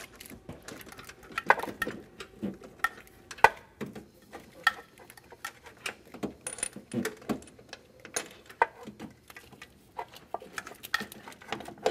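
Fox Body Mustang clutch cable being worked by hand into its click adjuster at the firewall: irregular light clicks and small rattles, a few sharper ones among them.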